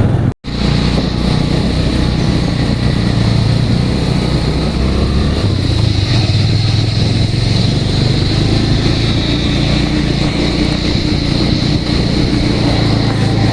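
Vehicle engine running steadily under way, with road and wind noise, after a brief cut in the sound about half a second in.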